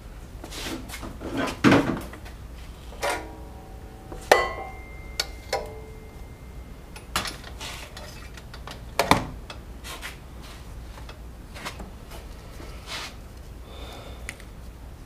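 Tools and small hard objects being handled and set down: a string of knocks and clinks, a few of them ringing briefly like metal. The loudest come about two, four and nine seconds in.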